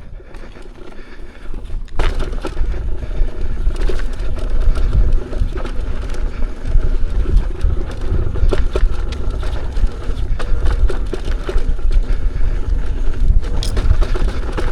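Electric unicycle riding over a rocky trail: a loud, continuous rumble of the tyre over rock and gravel, with many sharp clicks of stones pinging around, starting about two seconds in.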